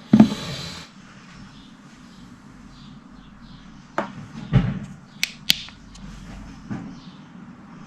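Slime being handled: a short noisy squish near the start, then about five sharp clicks and pops spread over a few seconds.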